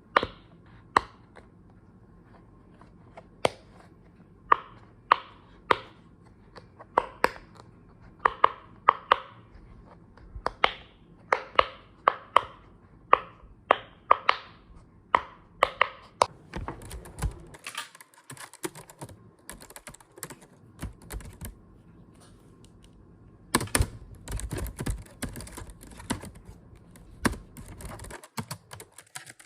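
Close-miked typing on a computer keyboard: single keystrokes with uneven pauses at first, then faster runs of typing in the second half.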